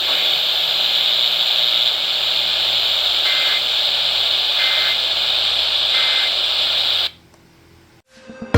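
Steady static hiss from a radio receiver, with three short high beeps about a second and a half apart. The hiss cuts off suddenly near the end.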